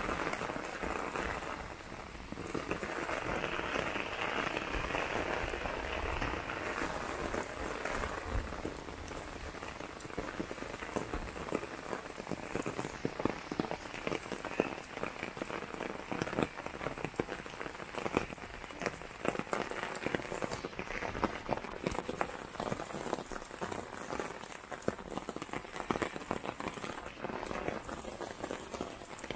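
Steady rain falling, a dense hiss for the first several seconds that thins out, after which many separate drops hit close by.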